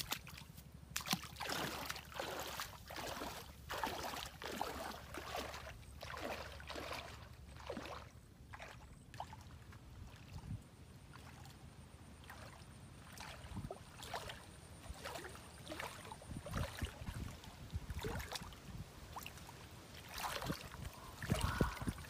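Water splashing and sloshing as a person wades through shallow river water, in a run of separate splashes, thinning out for a few seconds in the middle and turning to heavier, deeper sloshes near the end.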